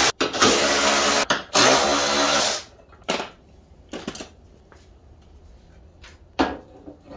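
Handheld power tool running hard in three stretches with two very short breaks, stopping about two and a half seconds in, followed by a few light knocks.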